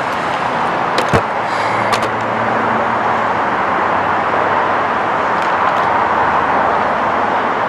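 Steady road traffic noise. A few sharp clicks come about one to two seconds in.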